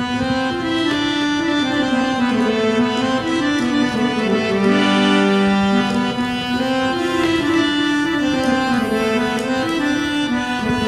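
Instrumental interlude of a South Asian folk song with no singing. A reedy instrument plays the melody in long held notes that step up and down.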